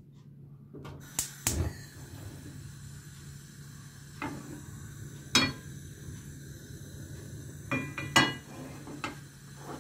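A gas stove burner is lit with two sharp igniter clicks about a second in, followed by the flame's faint steady hiss. A non-stick frying pan holding olive oil knocks against the stove's metal grate once mid-way and three times near the end as it is picked up and tilted.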